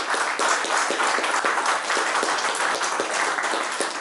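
A small audience applauding: many overlapping hand claps.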